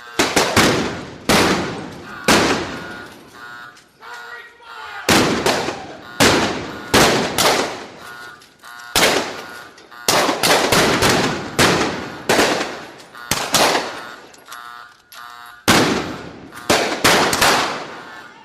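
Gunfight sound effect: gunshots fired singly and in quick bursts of two to four, at irregular intervals, each shot with a long echoing decay.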